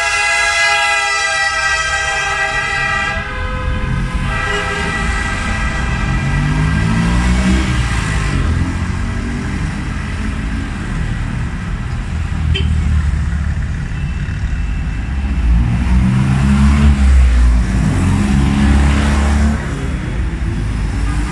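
Classic cars driving past: a long steady horn blast that cuts off about three seconds in, a fainter horn held for a few seconds after it, then engines pulling away with their pitch rising as they accelerate, several times over.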